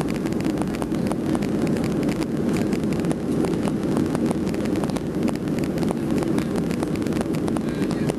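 Jet airliner engines and airflow heard from inside the passenger cabin during the climb after takeoff: a steady, low rumble with many small clicks over it.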